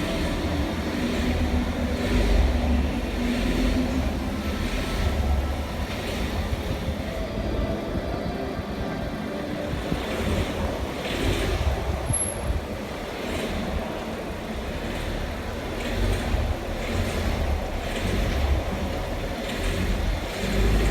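Skoda Octavia A7 1.2 TSI four-cylinder turbo petrol engine running, with a recurring knock of the kind that comes on when the accelerator is pressed. The owner likens it to valve knock or piston pins knocking, and says it persists on 98-octane fuel.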